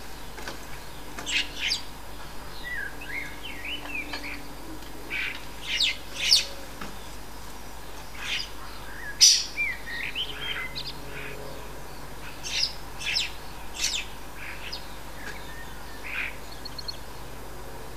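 Common starlings chattering: a loose run of short, sharp clicking calls mixed with whistled notes that slide up and down, coming irregularly every second or so.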